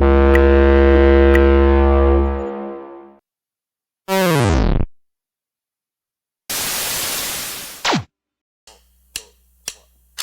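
A string of electronic meme sound effects. First comes a loud held synthesizer chord that fades out, then about a second later a short tone that slides steeply down in pitch. After a gap there is a burst of hiss with a falling tone in it, and then a few scattered clicks near the end.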